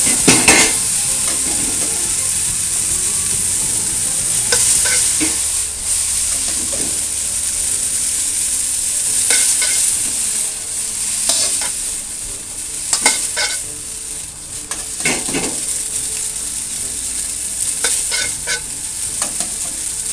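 Boiled spaghetti frying in rendered bacon fat in a pan, sizzling steadily, with scattered short scrapes and clinks of a utensil tossing the pasta in the pan.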